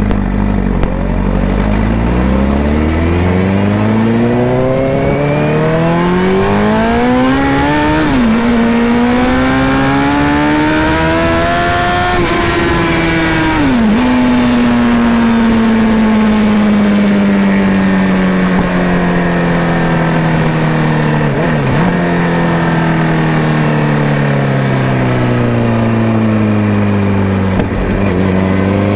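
Honda CBR sport bike's inline-four engine through a Remus aftermarket exhaust, heard from the rider's seat: it revs up through two quick upshifts with sharp pitch drops, then the revs fall slowly for a long stretch as the bike rolls off, and it pulls away again near the end. A steady hiss of wind and road noise runs underneath.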